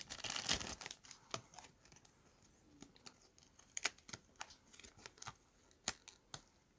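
Thin clear plastic bag crinkling as a paper cutout sheet is slid out of it, densest in the first second, then scattered light rustles and ticks as the card is handled.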